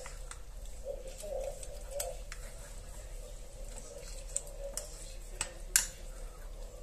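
A spoon stirring a thick mixture of honey, grated ginger and lemon in a glass container, with a few sharp clinks of the spoon against the glass, the loudest near the end.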